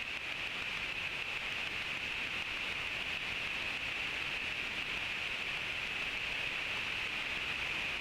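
Steady rain-like hiss, even and unbroken, slowly growing a little louder.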